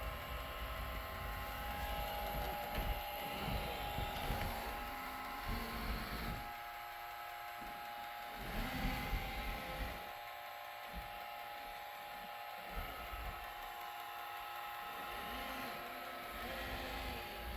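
iRobot Roomba robot vacuum driving around with its vacuum off, its drive-wheel motors whining steadily, with a few brief knocks as it searches for its home base and fails to dock.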